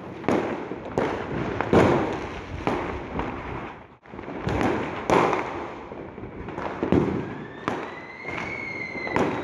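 Diwali aerial fireworks (sky shots) going off, a string of sharp bangs and crackling bursts one after another, with a short drop-out about four seconds in. Near the end a firework's high whistle rises slightly, then falls, under the bangs.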